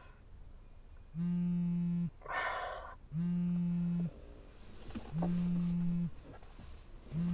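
A buzzy electronic warning tone beeping four times, each about a second long with a second's pause between, with a sharp breath between the first two beeps.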